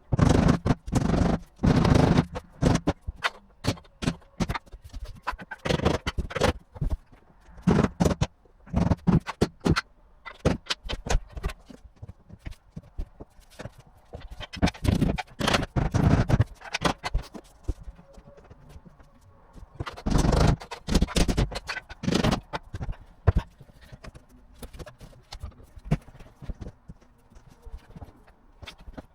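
Irregular knocking and scraping of laminate floorboards being handled and fitted, the knocks coming in clusters of quick sharp hits.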